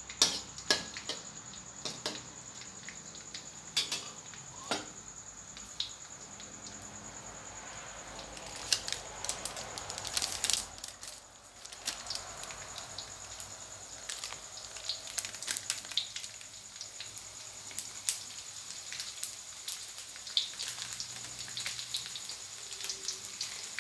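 Minced garlic frying in hot oil in a steel wok: a faint steady sizzle with scattered sharp pops and crackles throughout.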